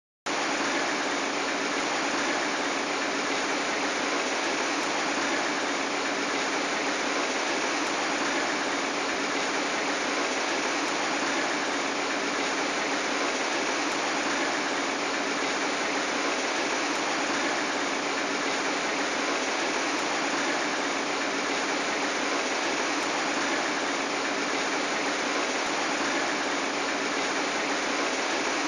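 Steady rushing of wind and water aboard a motorboat under way, with a low engine hum beneath.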